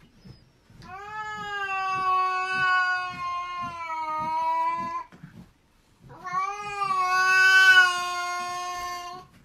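A cat yowling at another cat: two long, steady-pitched yowls of about four seconds each, with a short gap between them and the second louder.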